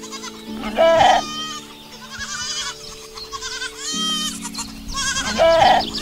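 Goat bleating twice, short and loud, about a second in and again near the end. Underneath are sustained, slowly changing chords of calm background music and high chirping.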